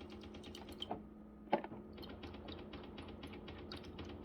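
Whirlpool refrigerator's water dispenser spitting and sputtering: a rapid, even run of clicking spurts, about seven a second, over a steady hum, with two louder knocks about a second and a second and a half in. The sputtering comes from a bad water inlet valve, which the owner traced it to.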